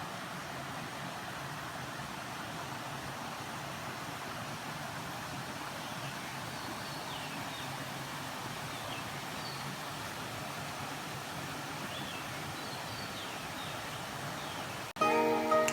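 Steady outdoor background noise with faint, short falling bird chirps now and then in the second half; music cuts in abruptly near the end.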